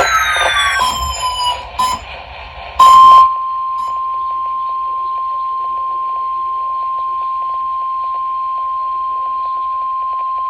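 NOAA Weather Radio 1050 Hz warning alarm tone: one steady, loud, unbroken pitch that starts about three seconds in, right after a short, very loud burst, and holds on. Before it, several falling electronic pitch sweeps and clicks are heard.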